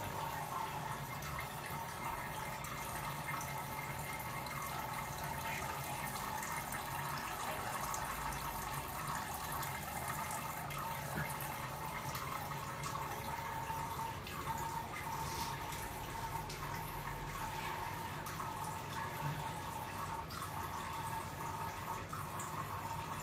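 A hairless cat peeing into a toilet bowl: a steady trickle of urine into the water, running without a break.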